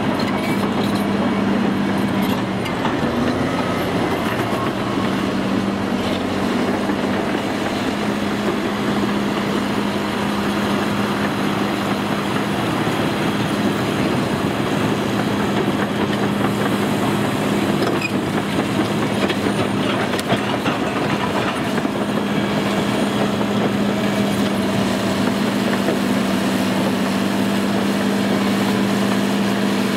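Cat D6R crawler bulldozer's six-cylinder diesel engine running at a steady note while its steel tracks clank and rattle as it moves and pushes earth with the blade.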